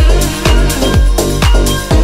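Electronic dance music with a steady four-on-the-floor kick drum, about two beats a second, under sustained synth chords.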